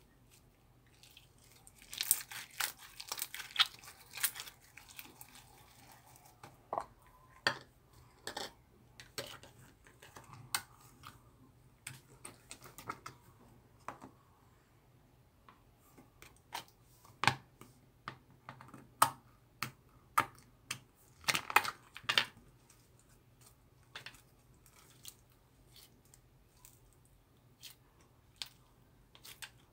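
Slime being squeezed and pressed by hand, giving irregular sticky pops and crackles with quiet gaps between them, busiest about two seconds in and again around twenty-one seconds.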